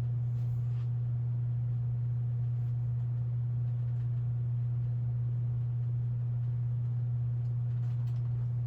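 A steady low hum, unchanging throughout, with only a few faint handling sounds as a DVI connector's thumbscrews are turned in by hand.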